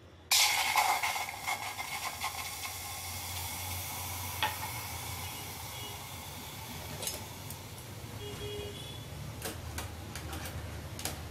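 Milk poured into a hot stainless steel pan on a gas stove, sizzling loudly as it lands, then settling into a steady sizzle and hiss as it heats. A few light clicks come through later on.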